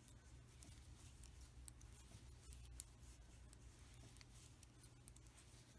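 Faint, irregular clicks and taps of metal knitting needles working cotton yarn, over a low steady room hum.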